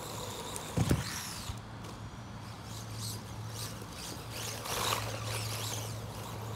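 Wltoys 144001 1/14-scale electric RC car driving on grass, its motor whining up and down in pitch. There is a loud thump about a second in and a louder rush of noise near five seconds.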